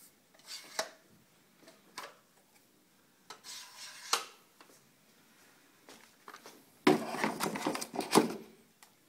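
Nylon caulking gun (MK H40PS) being handled: a few sharp plastic clicks and knocks, with a short scrape about halfway. Near the end comes a louder stretch of rubbing and knocking as the gun is laid into its cardboard box.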